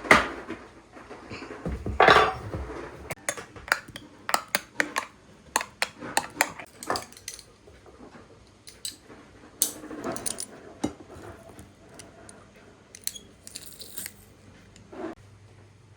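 Kitchen clatter: dishes, pots and cutlery clinking and knocking against each other and the counter, many short, sharp strikes, with a heavier thump about two seconds in.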